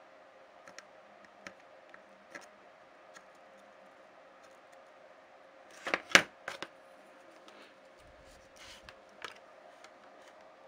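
Small hand tools clicking and tapping during bench work on a laptop motherboard, with a loud cluster of sharp clicks about six seconds in, over a faint steady hum.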